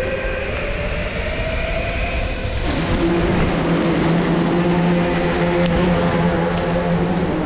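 Electric skateboard rolling fast on concrete: a continuous rumble of the wheels under the whine of the electric motors. The whine shifts in pitch in the first couple of seconds, then changes abruptly and holds steady.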